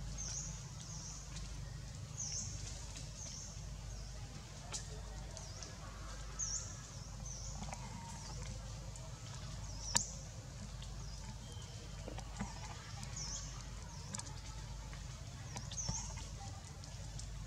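Short high chirps repeating about once a second over a low steady rumble, with a sharp click about five seconds in and a louder one about ten seconds in.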